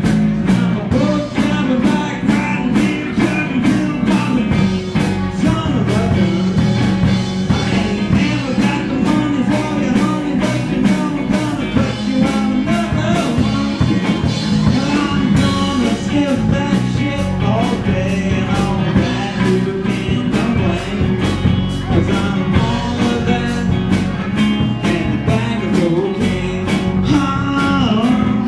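Live rock-and-roll band playing a loud blues-rock number, the drum kit keeping a steady beat under the other instruments.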